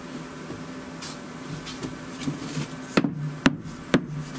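Three sharp knocks, about half a second apart, near the end, over a steady low hum.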